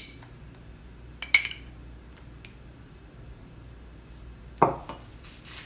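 Metal spoon clinking against a glass jar while scooping tomato sauce: one sharp ringing clink about a second in and a faint tap a second later. Near the end comes a duller knock as the glass jar is set down on the counter.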